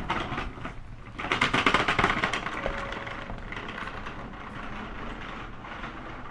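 Hankyu 8300-series electric train running: wheel and rail noise heard through the car floor above a bogie that the recordist calls unusually noisy. It swells louder about a second in, then settles to a steady rumble.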